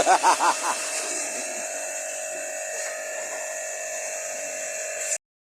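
A small electric motor runs steadily with an airy hiss and a steady whine, like a blower. It cuts off abruptly near the end.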